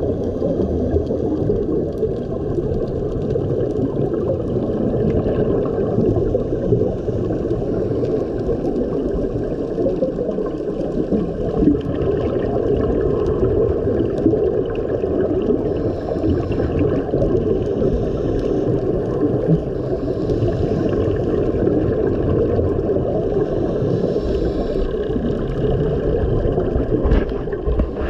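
Muffled underwater sound through a camera's waterproof housing: a steady low rushing of water, with the scuba regulator's exhaled bubbles hissing every few seconds.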